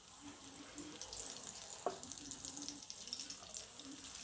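Lentil-batter bhallay deep-frying in hot oil: a steady crackling sizzle with fine pops, and one light knock about two seconds in.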